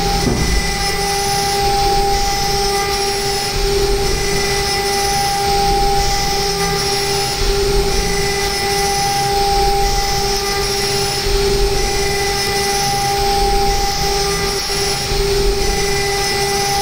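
CNC mill spindle turning a 6 mm single-flute end mill at 24,000 rpm, roughing a curved surface in an aluminium block: a steady high whine over the rushing noise of the cut.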